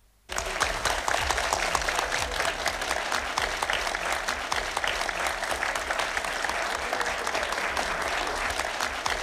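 Audience applause: many hands clapping, breaking out suddenly a moment in after a brief hush and carrying on steadily.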